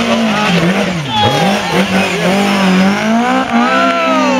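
Rally car engine revving hard through a hairpin. The revs fall steeply about a second in, then climb again as it accelerates away.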